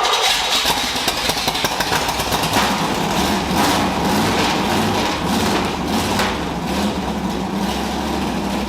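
1968 Corvette's 454 big-block V8 running loud through its sidepipes. It is a cold engine with no choke, and it needs more fuel to keep running.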